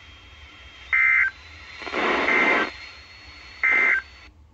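NOAA Weather Radio end-of-message SAME data bursts: three short, buzzy two-tone digital squawks about a second apart, the middle one smeared with static, marking the end of the Coastal Flood Warning alert. The receiver's background hiss cuts off just before the end as the transmission drops.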